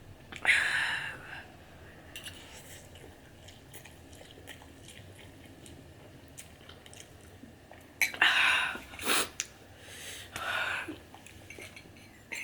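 A person eating spicy ramen noodles close to the microphone: soft chewing with small mouth clicks, and louder breathy mouth sounds about half a second in and again in the last few seconds.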